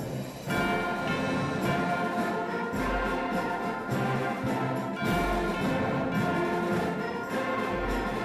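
Large ensemble of young musicians playing orchestral music, with brass and wind over the band and a deep low note sounding about every two and a half seconds.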